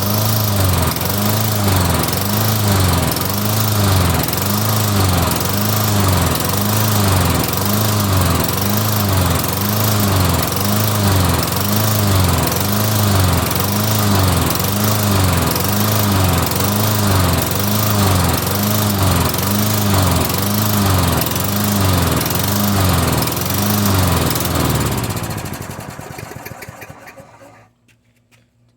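Toro lawn mower's 6.5 horsepower engine running and surging, its speed rising and falling about once a second: the hunting fault the customer reported, which the owner means to cure by cleaning the carburetor. Near the end the engine slows and stops.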